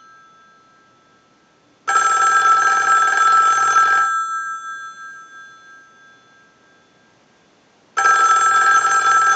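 A Western Electric 500 rotary telephone's bell rings twice on a test ring cycle. Each ring lasts about two seconds and the two are about six seconds apart; the first fades away slowly and the second starts near the end. The bell, which had not been ringing, now rings after repair.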